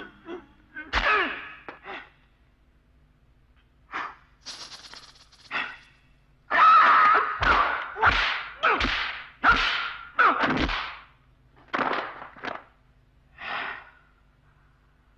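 Dubbed kung-fu film fight sound effects: a string of exaggerated punch and kick impacts with whooshes. A few come early, then a rapid flurry, then a few spaced hits near the end.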